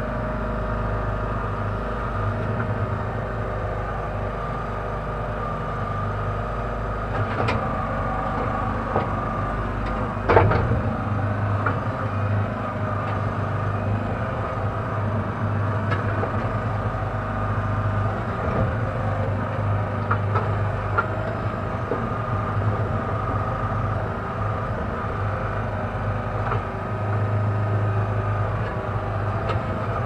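Kellfri towable backhoe's engine running steadily, its low note swelling and easing as the hydraulics take load while the bucket digs. A few sharp knocks of the bucket and boom, the loudest a bang about ten seconds in.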